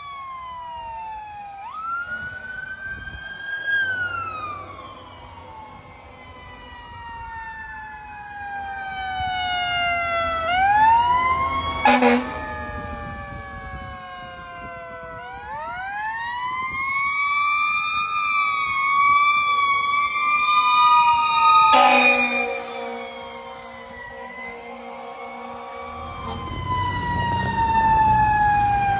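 Fire engine sirens wailing, several at once, each rising and then falling in pitch, with two short air-horn blasts, one about twelve seconds in and one about twenty-two seconds in. Near the end a truck's engine rumble grows louder under the sirens.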